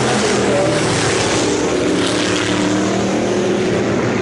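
Several IMCA Hobby Stock race car engines running at speed as the field laps the track, their pitches rising and falling.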